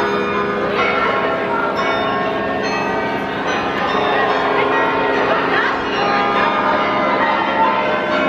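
Church bells ringing a continuous peal: many bells of different pitches striking in turn, their tones overlapping and ringing on.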